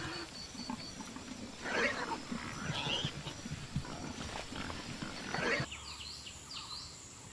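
Leopard growling in short, rough bouts, loudest about two seconds in and again about five and a half seconds in.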